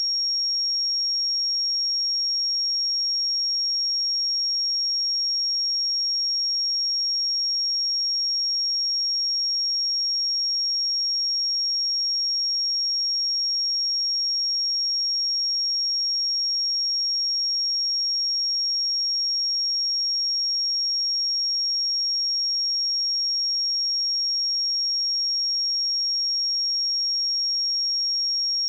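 A pure 5573 Hz sine-wave test tone, one steady high-pitched tone that holds unchanged.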